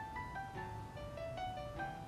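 Gentle instrumental background music: a melody of short single notes moving step by step.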